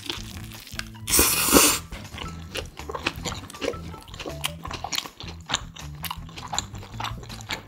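Close-up eating of a ham, egg and cheese toast sandwich: a loud crunchy bite into the toasted bread about a second in, then wet chewing with many small mouth clicks.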